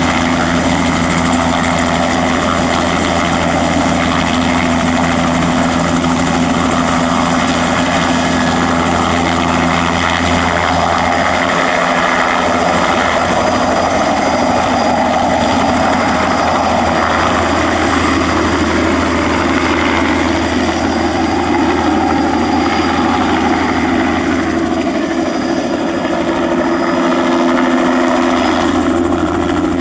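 Bell 206B-3 JetRanger III helicopter running steadily close by, its Allison 250 turboshaft turbine and rotor sounding together as a loud, even drone. The deepest hum dips briefly twice, about twelve seconds in and again near the end.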